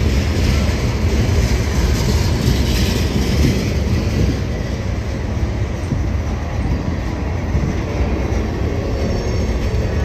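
Norfolk Southern freight train's boxcars rolling past close by: steady noise of steel wheels running on the rails.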